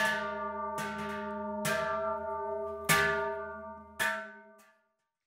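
A hand-forged Swiss sheet-metal cowbell (Schelle), brass-brazed, is swung by its handle so the clapper strikes about five times, roughly a second apart, each stroke leaving a ringing clang of several tones. A last faint touch comes just before the sound cuts off abruptly. This is the first ringing of the finished bell, whose tone has turned out well.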